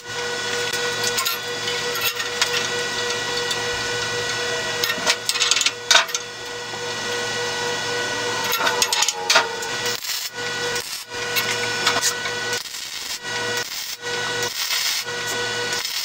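MIG welder arc crackling and hissing as the 1-inch black iron pipe T-handle is tacked and welded, the sound stopping and restarting several times in the second half.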